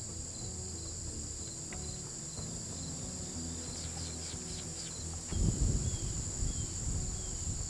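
Steady evening chorus of crickets and other insects, a high continuous trill, over soft background music. About five seconds in, a louder low rumble joins.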